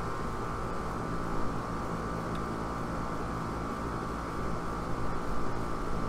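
Outdoor R-410A air-conditioner condenser unit running: steady compressor hum and condenser fan, unchanging while refrigerant is charged into it.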